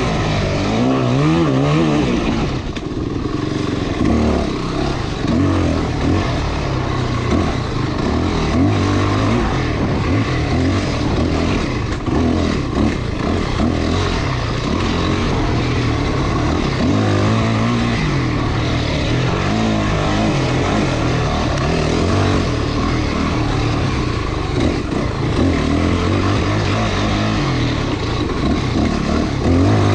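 Off-road motorcycle engine revving up and down again and again as it is ridden along a dirt trail, over a steady rush of wind noise.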